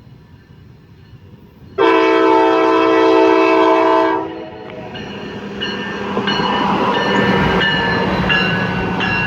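CSX GMS car train's horn sounding one long blast of about two seconds, starting suddenly and cutting off a little after four seconds in. Then the train passes close by: a steady rail rumble with some clicking and intermittent high-pitched ringing tones.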